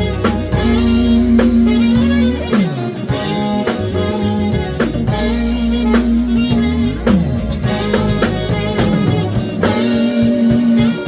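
Live jazz-funk band playing: electric guitar to the fore over electric bass, drum kit and keyboards, with a few sliding notes.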